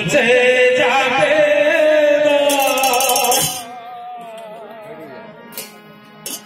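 A man singing a devotional song into a microphone through a PA, holding a long, slowly falling note with a waver in the pitch; after about three and a half seconds the singing drops to a quieter, wavering line.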